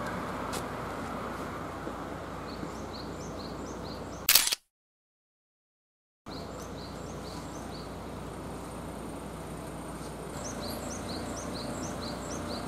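Outdoor ambience with a steady background noise and a small bird calling in runs of short, high, rising chirps, several times. A little over four seconds in there is a brief loud rustle, then the sound cuts out completely for about two seconds before the ambience and the chirps return.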